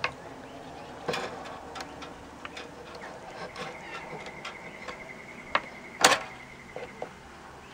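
Pliers gripping and pulling steel hive-frame wire taut through a wooden beehive frame: a few sharp metal clicks and taps, the loudest about six seconds in. A faint high ticking runs through the middle.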